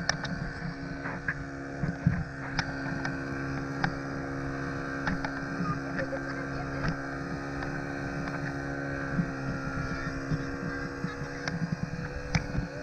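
Speedboat engine running at a steady pitch while towing an inflatable donut boat, with wind rumbling on the microphone.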